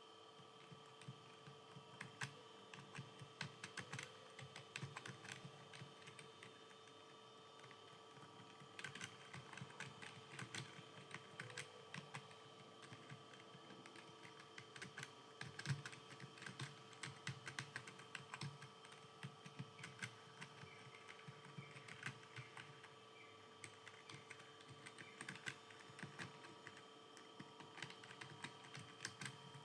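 Computer keyboard keys clicking in irregular runs of fast typing, with short pauses between runs, over a faint steady hum.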